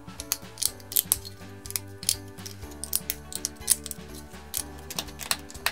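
Plastic LEGO bricks clicking and snapping onto a plate as a model is assembled, many short sharp clicks at irregular intervals. Steady background music plays under them.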